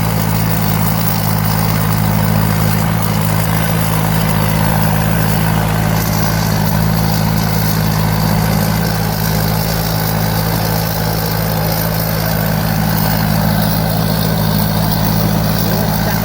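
Thai Seng 'Super Jiw' six-ton combine harvester with a four-cylinder turbo diesel engine, running steadily with an unchanging low drone.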